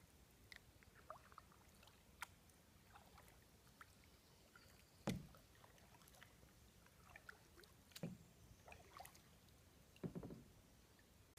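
Kayak paddling on calm water, mostly quiet: three paddle strokes at intervals of two to three seconds, each a short knock and splash, the loudest about halfway through. Faint small ticks of water sound between the strokes.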